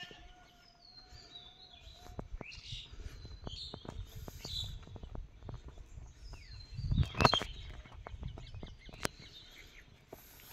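Birds chirping in short gliding calls, over a low rumble and scattered clicks, with a louder cluster of sharp knocks about seven seconds in.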